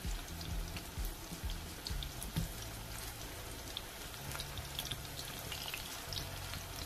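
Corn fritters sizzling in hot oil in a pan: a steady hiss with frequent small crackles and pops. Quiet background music plays underneath.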